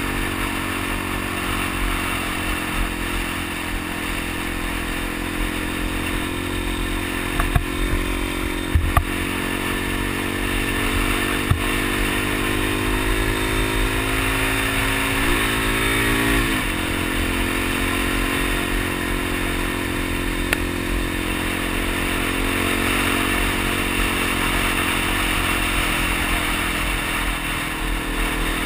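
Suzuki DR-Z dual-sport motorcycle's single-cylinder engine running at road speed from on board, with wind rushing past. Its pitch climbs about halfway through, then drops sharply with a gear change. A few sharp clicks come about a third of the way in.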